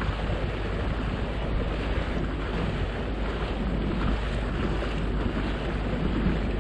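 Steady wind noise buffeting the microphone over the rush of water from a boat underway.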